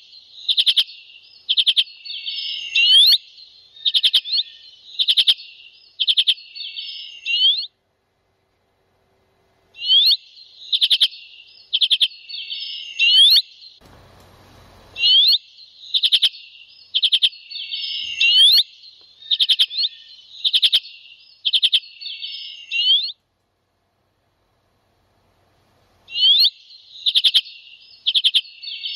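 Small songbird calling, a short buzzy phrase with a sharp rising note repeated about once a second, in long bouts broken twice by complete silence.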